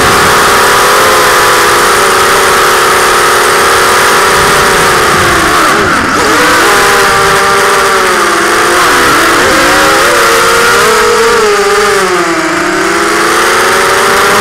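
Electric motors and propellers of an FPV drone whining loudly, heard through its own onboard camera. The pitch falls and climbs back with the throttle: sharp dips about six seconds in and around nine, and a longer drop near the end.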